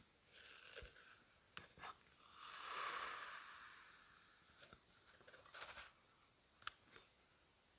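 Kinetic sand being cut and scooped: soft crunching and crumbling. There are a few sharp ticks, a soft hiss that swells and fades about three seconds in, and quieter crumbling later.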